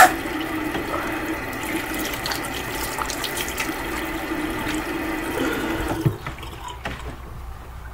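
Bathroom sink tap running steadily into the basin while hands splash water on the face; the tap is shut off with a click about six seconds in, and the running water stops.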